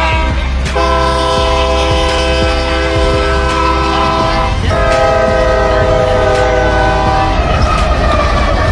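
Diesel freight locomotive air horns sounding in a string of short clips, each a long, steady multi-note chord, over a low rumble. The horn chord changes abruptly about a second in, around the middle, and near the end.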